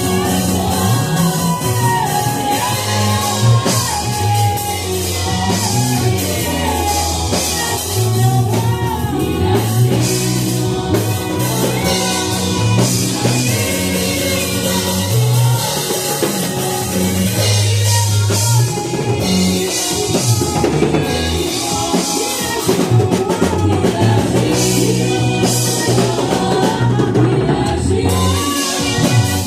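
Live worship music: a band with drum kit and bass accompanying singing.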